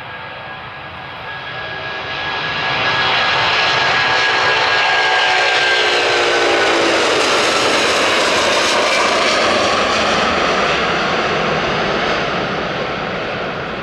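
Airbus A330-200's two Rolls-Royce Trent 700 turbofans at takeoff thrust as the airliner rolls, lifts off and climbs past. The jet noise builds over the first few seconds and stays loud, a whining tone slides down in pitch as the aircraft goes by, and the noise begins to fade near the end as it climbs away.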